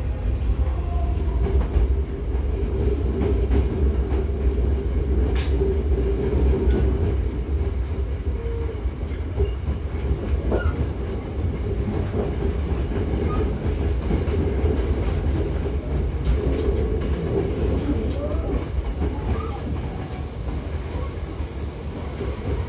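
Hankyu 8000-series electric commuter train running, heard from inside the car: a steady low rumble with a running tone, and clicks from the wheels over the track.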